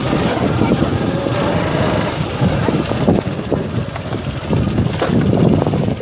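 Motorcycle engine running while riding, with wind buffeting the microphone.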